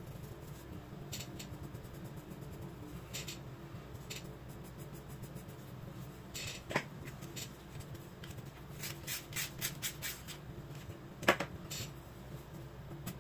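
Graphite drawing pencil scratching on sketchbook paper in short hatching strokes, in scattered clusters with a quick run of strokes near the end. Two sharper taps of the pencil on the paper stand out, the louder one near the end.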